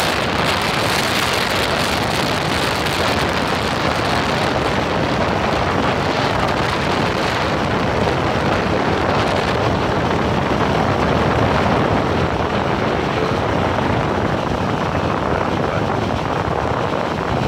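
Speedboat running at speed: a steady, unbroken engine drone mixed with rushing water and wind buffeting the microphone.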